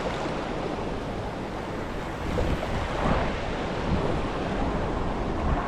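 Waterfall and creek rapids rushing steadily, with wind on the microphone adding a low, uneven rumble.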